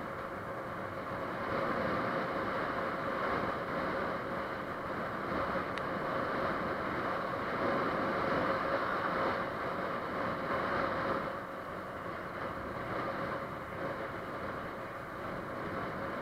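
Motorcycle cruising on a paved road: a steady rush of wind and road noise with the engine's even hum underneath. It grows a little louder a couple of seconds in and eases back about eleven seconds in.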